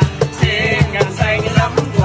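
A man singing a Vietnamese song to acoustic guitar strumming and a steady cajón beat, about four hits a second.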